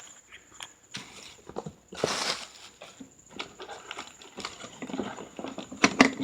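A shipping package being opened and handled: scattered knocks and clicks, a short rip about two seconds in, then rustling of the packaging.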